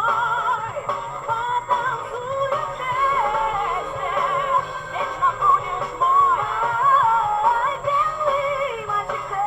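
Background music with a sung vocal melody.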